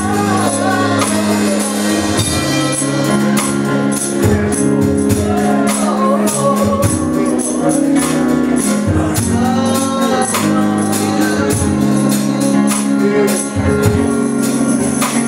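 Live gospel music: voices singing over held chords, with a tambourine shaken and struck in a steady beat.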